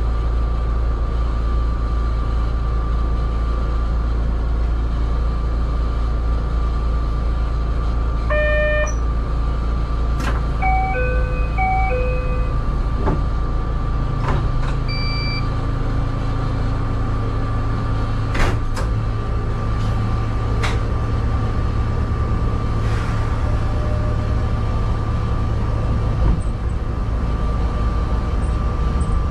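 Cab of a stationary Yokkaichi Asunarou Railway narrow-gauge electric train: a steady low hum of its running equipment with a faint constant whine. Short electronic chime tunes sound about nine and twelve seconds in, with a brief two-note chime a little later. A few sharp clicks come in the second half.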